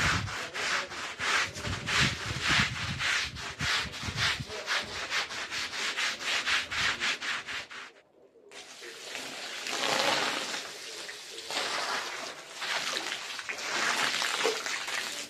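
Stiff-bristled push broom scrubbed over a wet, soapy rug in brisk back-and-forth strokes, about three a second. After a short break about halfway, water from a hose pours and splashes onto the rug in a steady rush.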